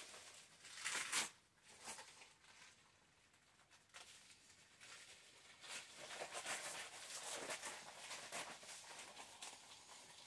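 Stiff clear PVC dress rustling and crinkling as it is handled and pulled on, arms pushed through the plastic sleeves. There is a louder swish about a second in, then steady crinkling through the second half.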